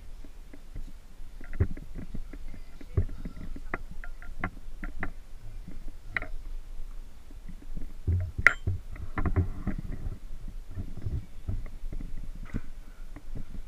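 Irregular knocks, thumps and rumbling handling noise, with one sharp click about eight and a half seconds in.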